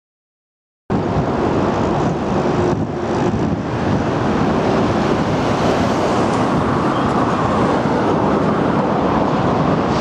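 Road traffic noise with a small truck driving past: a steady rush of vehicles that cuts in suddenly about a second in, after silence.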